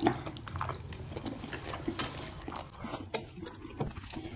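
People chewing mouthfuls of steamed momo dumplings, wet mouth and chewing noises with scattered short clicks of chopsticks against steel plates. A louder click comes right at the start.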